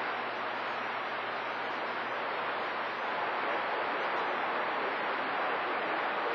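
Steady static hiss from a CB radio receiver on channel 28 (27.285 MHz), with no station's voice coming through between transmissions.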